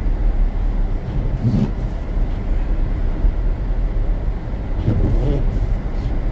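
Steady low rumble of a car driving, heard from inside the cabin: tyre and engine noise on a snow-covered road. There are two brief louder swells, about one and a half seconds in and again near five seconds.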